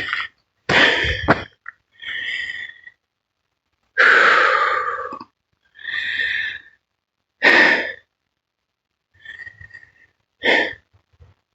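A hiker's heavy breathing close to the microphone: separate breaths in and out, roughly one every one to two seconds, the longest and loudest about four seconds in.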